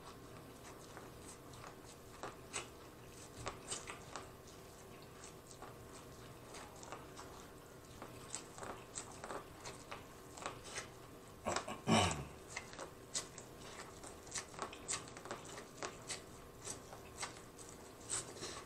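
Close-up biting and chewing of kernels off a corn on the cob: a steady run of small crunches and clicks. About two-thirds of the way through there is one louder sound that falls in pitch.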